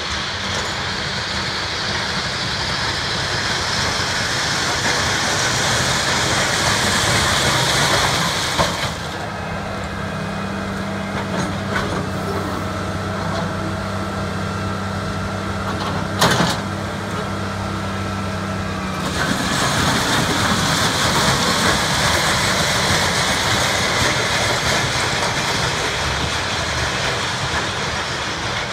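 Railroad ballast regulator working the track bed, its diesel engine running under a broad rushing hiss of ballast and dust being swept. In the middle stretch the rushing drops away and a steady engine drone stands out as the machine is close by, with a single sharp clank a little past halfway. The rushing noise then returns.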